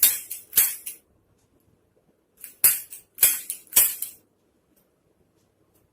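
Sharp hand slaps on the body in two short runs: two strikes in the first second, then a few more about half a second apart from about two and a half seconds in.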